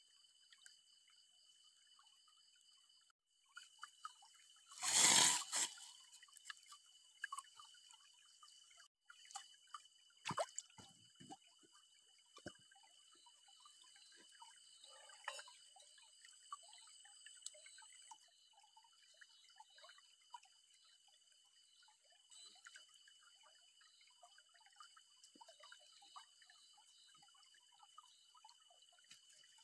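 Faint scattered drips and small ticks over a steady high-pitched background chirr, with one louder rush of poured or splashing water lasting about a second, about five seconds in.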